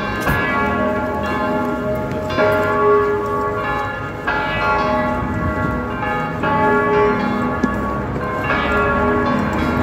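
Church bells ringing, several bells struck one after another, the pattern repeating every two seconds or so.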